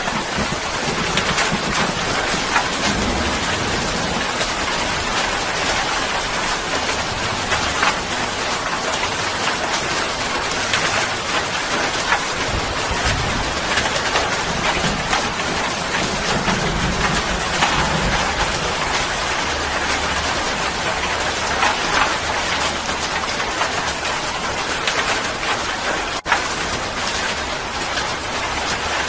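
Steady rain falling hard on surfaces, an even hiss of dense drops, with low rumbling in the background that rises and fades at times.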